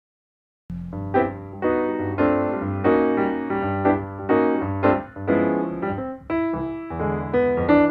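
Music from a jazz film soundtrack starts after a short silence, about two-thirds of a second in: a piano plays rhythmic chords over low notes.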